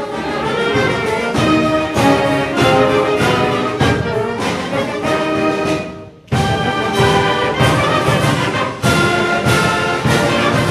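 Background music from a symphonic wind band, with brass playing accented chords. It breaks off briefly about six seconds in, then comes back in.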